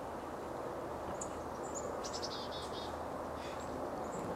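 Small birds chirping: scattered short, high chirps and a quick descending trill about two seconds in, over a steady background hiss.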